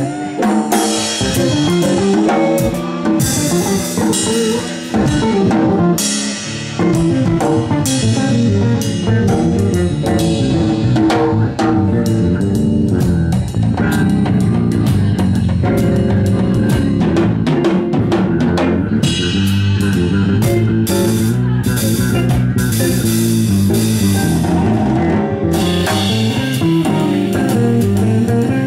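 Live jazz trio playing, with the drum kit to the fore: sticks on ride and crash cymbals, snare and bass drum, over electric guitar and bass.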